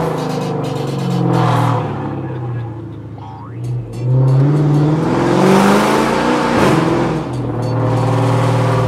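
Chrysler 300 driving on a city street, heard from inside the cabin: the engine rises and falls in pitch as the car pulls away and cruises, with music playing underneath.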